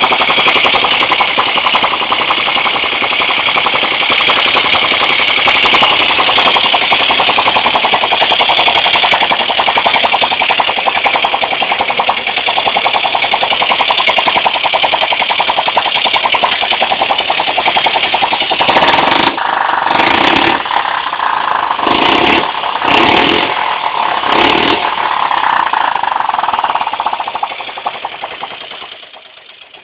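Honda C100 Super Cub's small single-cylinder four-stroke engine running on a test, a loud rapid chatter of firing. About two-thirds of the way in it falters several times in quick succession, then winds down and stops near the end.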